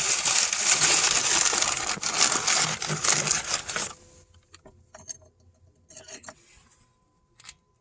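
Dense rattling and crinkling of plastic being handled for about four seconds, then only a few faint knocks.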